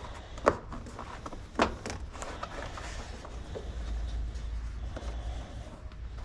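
Hands working a mountain bike tire's bead over the wheel rim: two sharp knocks about half a second and a second and a half in, then a lighter tick and low rubbing and handling noise.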